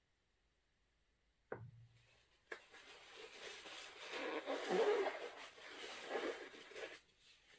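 A single knock about a second and a half in, then a click and several seconds of uneven rustling, crinkly handling noise on the work table.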